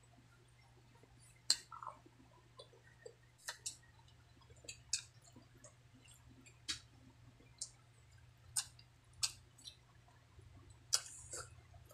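Close-up eating sounds of a person chewing a mouthful of rice and fried fish: wet mouth clicks and smacks coming irregularly, about a dozen sharp ones, over a low steady hum.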